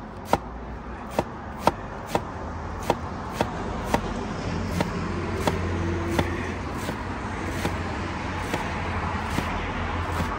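Knife chopping vegetables on a cutting board in steady strokes, about two a second at first, then slower and fainter. A low vehicle engine rumble grows underneath from about four seconds in.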